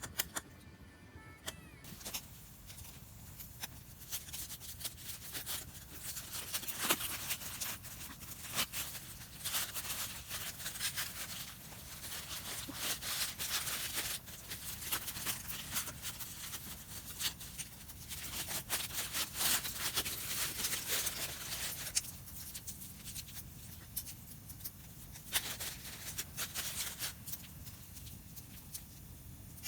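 Firewood burning, crackling with many irregular sharp pops that come thicker and thinner in turns. A short tail of background music fades out at the start.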